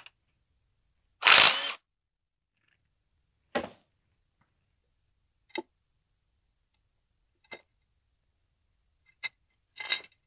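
A cordless impact driver runs in one short burst about a second in, backing a bolt out of a semi-hermetic compressor's cast-iron end cover. Then come single metal clinks and clanks every couple of seconds, with a quick cluster of them near the end as the heavy cover is worked loose and lifted off.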